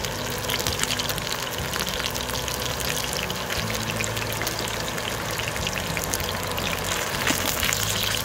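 Chicken pieces, potato rounds, carrots and green onion sizzling on a hot griddle pan: a steady frying hiss peppered with fine crackles and pops.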